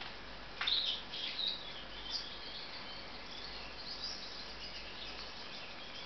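Gouldian finches giving short, high chirping calls at irregular intervals over a steady background hiss, with one sharp click about half a second in.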